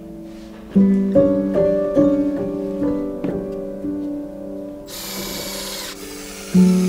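Light background music with plucked, piano-like notes; about five seconds in, a cordless drill runs for about a second, drilling into a wooden shelf piece.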